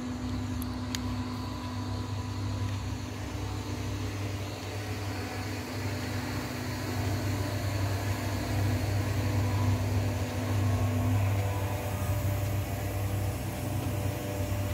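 Steady low mechanical hum with a fainter higher tone that drops out about two-thirds of the way through, growing a little louder about halfway.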